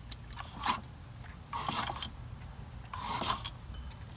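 A 212cc Predator single-cylinder engine is turned over through full revolutions, giving a repeated rasping scrape about every second and a half. The piston rings are dragging along a cylinder wall still rough with corrosion, just after the seized engine has been freed.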